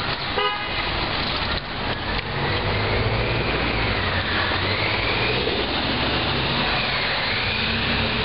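Power wheelchair's drive motors whining as it moves through slush, the whine dipping and rising in pitch twice, over a steady rush of outdoor street noise. A short horn-like toot sounds about half a second in.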